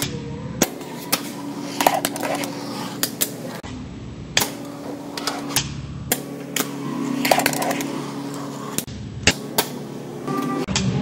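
Fingerboard tricks on a granite countertop: sharp irregular clacks as the board's tail pops and its wheels and trucks land and strike a small rail. Background music plays underneath.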